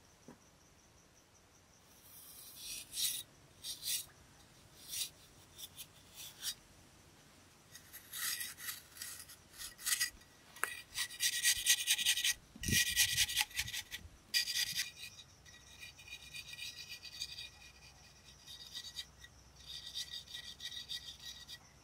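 A flat hand scraper rasping across the face of a dried clay-rendered block in repeated uneven strokes, smoothing and shaving the surface. The strokes start about two seconds in and come thickest around the middle.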